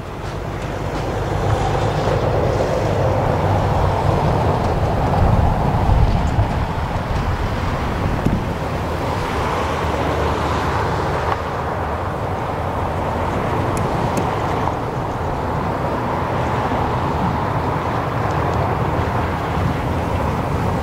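A business jet's engines running as it comes in to land, a loud, steady roar with a deep rumble. It swells over the first two seconds and then holds steady.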